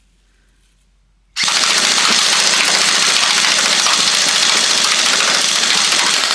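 Tokyo Marui Glock 18C electric airsoft pistol firing full-auto: its motor and gearbox cycle in one loud, continuous rapid-fire burst that starts suddenly about a second and a half in and runs for about five seconds.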